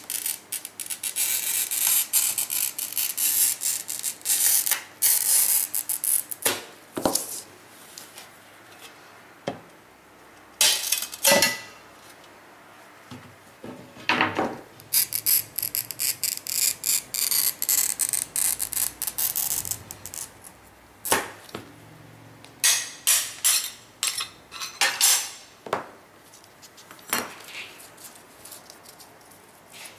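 Hand-held wheel glass cutter scoring textured art glass along a cardboard template, a high gritty hiss, with sharp snaps and clinks in between as the glass is broken along the score and the pieces are handled.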